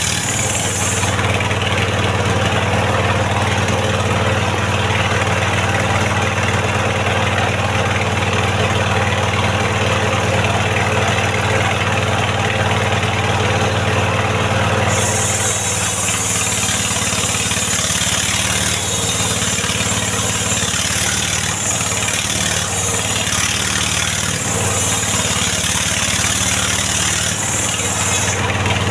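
Engine-driven mobile circular sawmill running steadily as a mahogany log is fed through and ripped into rafters. A high hiss from the blade comes in about halfway and stops just before the end.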